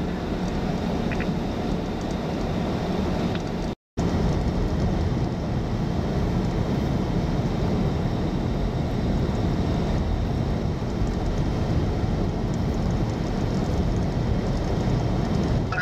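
Steady, loud low rumbling noise, broken by a brief cut to silence about four seconds in.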